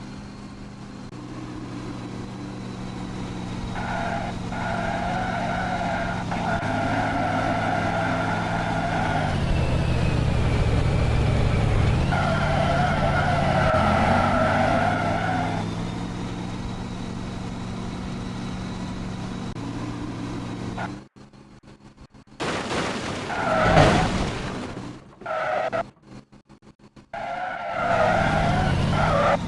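Vehicle engine sound, steady with a dip and rise in pitch midway, overlaid by a high squealing tone that comes and goes. It breaks off abruptly several times in the second half.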